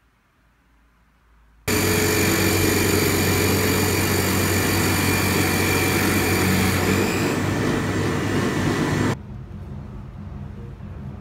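Industrial machinery of a PP melt-blown filter cartridge production line running steadily: a dense hum with several steady whining tones. It starts abruptly about two seconds in and cuts off suddenly about nine seconds in, leaving a fainter low hum.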